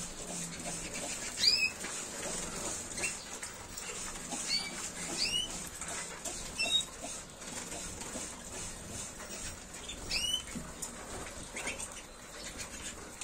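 Spanish Timbrado canaries in a flight cage giving short, scattered chirping calls, the loudest about a second and a half in and again about ten seconds in, over light pattering and rustling from the flock.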